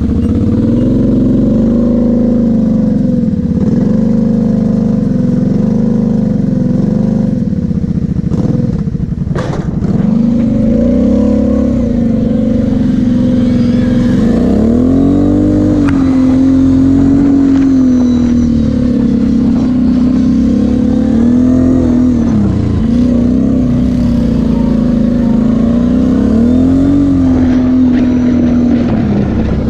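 Kawasaki KFX 700 V-Force quad's V-twin engine running under load with the throttle worked on and off. The engine pitch rises and falls repeatedly, with several sharp drops and pick-ups.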